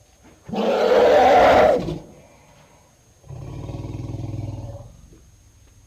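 Elephant roaring: one loud call lasting about a second and a half, then, about three seconds in, a second lower and quieter rumbling call.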